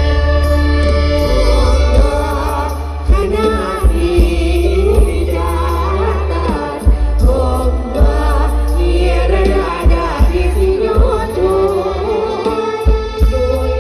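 Mor lam stage band playing: singing over a heavy bass line with regular drum hits.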